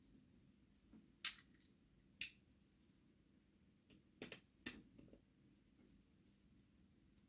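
Small sharp clicks from a small screwdriver working a coupling onto a model locomotive chassis: two single clicks, then a quick cluster of three or four about four seconds in, with near silence between.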